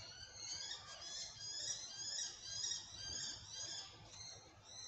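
Birds chirping: a run of quick, high, short falling notes, repeated over and over.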